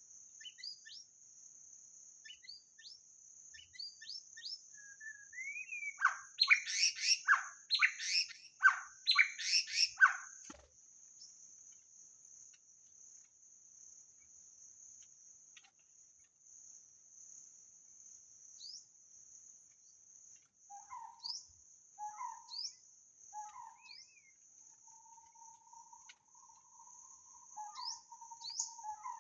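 White-rumped shama singing: a loud run of rich, varied whistled phrases about six seconds in, lasting some four seconds, with scattered short chirps and low notes later. A steady high-pitched insect drone runs underneath.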